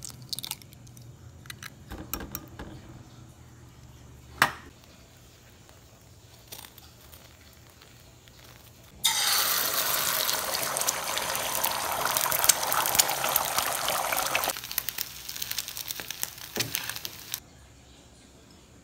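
Beaten eggs hitting a hot oiled pan: a sudden loud sizzle starts about halfway through. After a few seconds it thins to crackling, then cuts off abruptly. Before it there are a few light clicks and one sharp knock.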